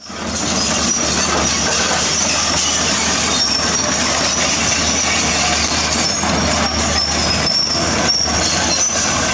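Volvo EC210B excavator working: steady diesel engine and machinery noise, with thin high-pitched squeals wavering on top.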